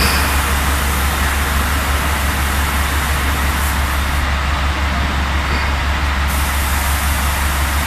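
Powder coating booth equipment running: a deep steady hum under a continuous rush of air from the booth's extraction fan and the spray gun's compressed air. The high hiss drops out for about two seconds midway, then returns.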